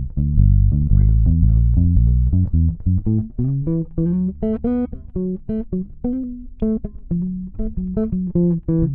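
Ibanez SR-3006E six-string electric bass with Bartolini pickups and NTBT-918 preamp, played solo and recorded direct: a quick run of plucked notes that climbs into a higher register partway through and comes back down toward the low strings near the end.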